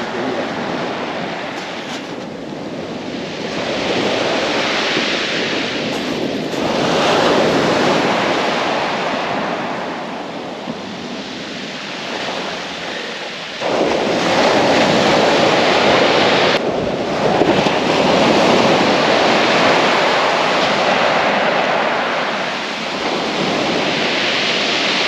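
Surf breaking and washing up a shingle beach, swelling and falling with each wave, with wind on the microphone.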